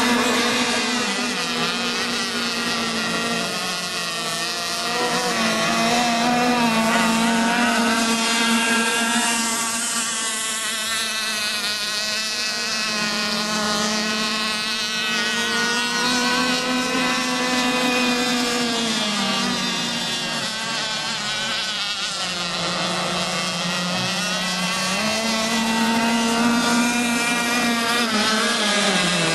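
Several radio-controlled model racing boats' small engines running flat out as the boats race around the course, a steady high buzz whose pitch sags and climbs again a few times.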